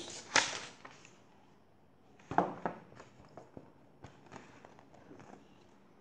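Paper rustling and crinkling as the page of a paperback picture book is turned and the book is handled: a rustle just after the start, two more a little after two seconds in, then a few soft taps and crinkles.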